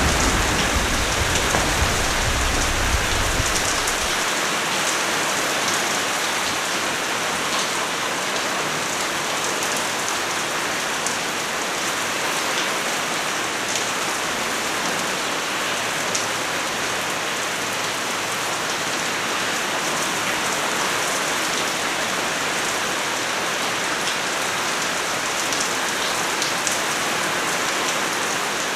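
Steady rain falling and pattering on a surface, with a low rumble of thunder that dies away about four seconds in.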